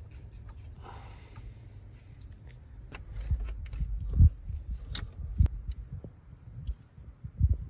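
Rustling and light clicks of rubber hoses and wiring being pushed aside by hand in an engine bay, with a few dull thumps.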